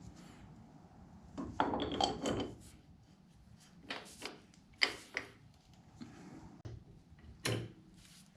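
Tools and parts being handled: a short run of clattering knocks about a second and a half in, then scattered single knocks and clinks.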